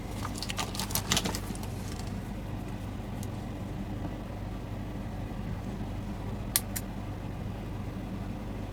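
Light clicks and taps from handling small tools and parts at a workbench, clustered in the first two seconds, with two sharp clicks about six and a half seconds in, over a steady low hum.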